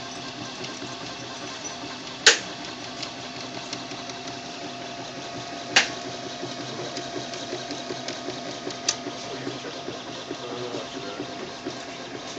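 MakerBot Replicator 3D printer running a print: its stepper motors buzz and whir in quickly changing patterns as the extruder carriage and build platform move, over a steady hum. Two sharp clicks stand out, about two and six seconds in.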